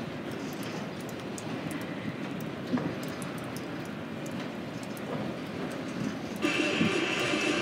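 Union Pacific vehicle train's autorack freight cars rolling past with a steady wheel rumble and a few sharp clicks from the rail joints. Near the end a high-pitched squeal cuts in for under two seconds and stops abruptly.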